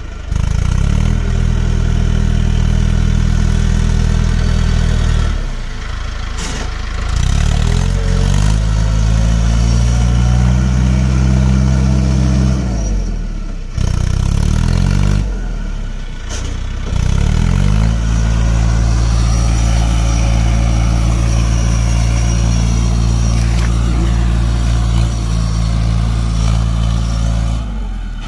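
Mahindra Arjun 555 tractor's four-cylinder diesel engine revved hard and held at high revs as it drives through deep paddy-field mud, easing off and revving up again in four long pulls. The strain is that of a tractor working to get through or out of the mud.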